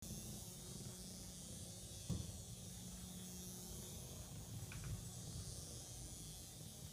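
Small battery-powered Wild Mouse cat toy running, its motor making a low, rattly buzz as it skitters on a wooden floor. A single thump about two seconds in, and a faint click near the five-second mark.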